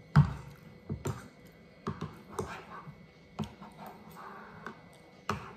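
Metal spoon and fork clicking and tapping irregularly against ceramic bowls and a plastic plate at a meal, with soft eating noises between the clicks.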